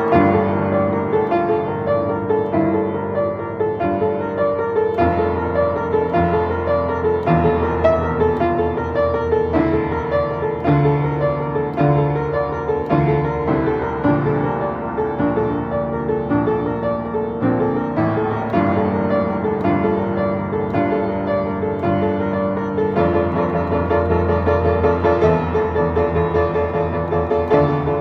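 Piano music: quick, dense notes over a steadily repeated middle note, with low bass notes changing every second or two.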